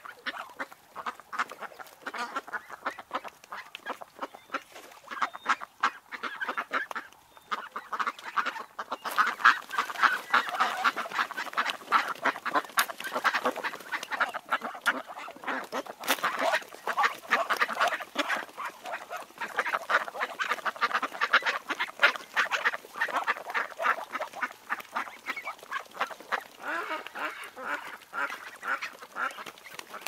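A flock of young domestic ducks calling, many short quacks overlapping in a continuous chatter that grows busier and louder from about nine seconds in.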